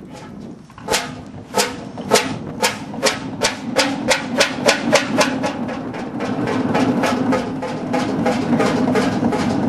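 Hundested 45 HP single-cylinder two-stroke hot bulb (semidiesel) engine just started and picking up speed: sharp, knocking firing beats come faster and faster. By about six seconds in they blur into a quicker, steady beat over a low hum.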